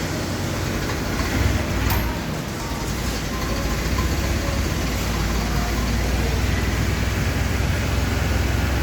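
Car engine running steadily with the throttle held open, a low even rumble that swells briefly about a second and a half in, while it is checked for a misfire.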